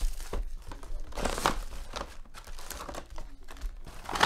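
Foil wrappers of 2017 Panini Phoenix NFL trading-card packs crinkling and rustling in short bursts as the packs are handled and stacked, with the loudest crinkle near the end.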